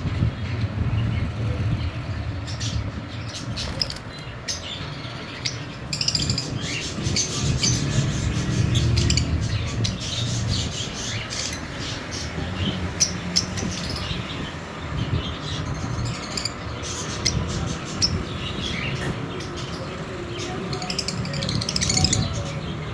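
A pair of lovebirds chirping and twittering in quick, short, high calls, coming in dense runs at times, over a steady low rumble.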